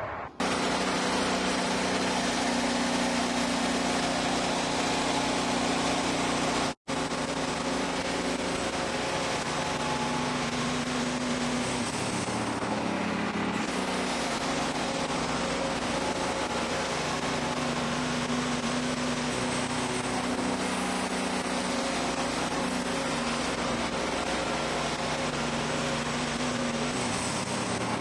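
Wood-Mizer band sawmill running steadily under load, its engine note and the band blade cutting through a cherry log. It breaks off for an instant about seven seconds in.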